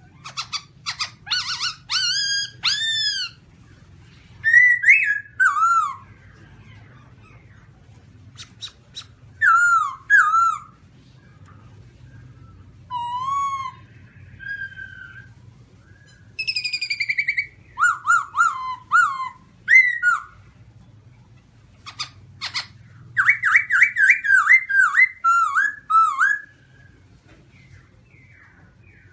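Black-throated laughingthrush (Garrulax chinensis) singing: loud whistled phrases that swoop up and down in pitch, mixed with harsh, clicky notes and broken by short pauses. A fast run of notes comes about two-thirds of the way through.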